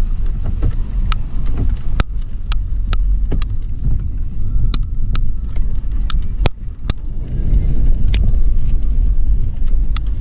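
Steady low rumble of a 2013 Toyota 4Runner SR5's V6 driving off-road through sand dunes, with about a dozen sharp knocks and clicks scattered through it.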